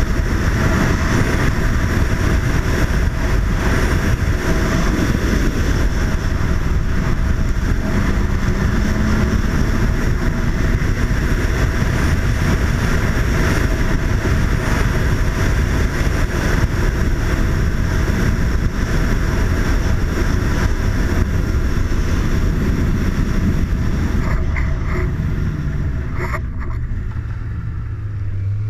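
Snowmobile running along at speed, its engine drone under a steady rush of wind noise on the helmet-mounted microphone. Near the end the rider eases off the throttle and the sound drops and thins.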